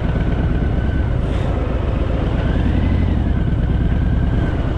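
Harley-Davidson Fat Boy's V-twin engine running under way, with steady wind and road noise. A faint tone rises and falls around the middle.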